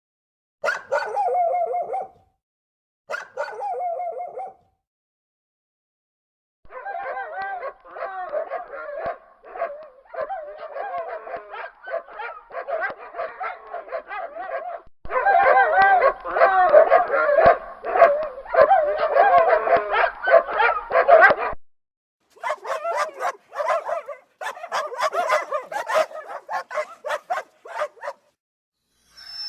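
Dogs barking in a string of edited sound-effect clips. Two separate calls near the start, then a short silence, then fast, repeated barking that gets louder about halfway through and cuts off suddenly, then more rapid barking.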